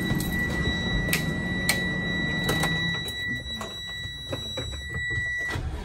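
A school bus's low-air-pressure warning buzzer sounds one steady high tone, cutting off about five and a half seconds in, over the low rumble of the idling engine, with a few clicks. The buzzer means the air brake system has not yet built up pressure.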